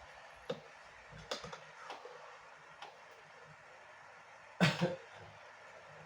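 A person coughs once, a short burst with a second smaller catch, about three-quarters of the way in, after a few faint clicks and taps.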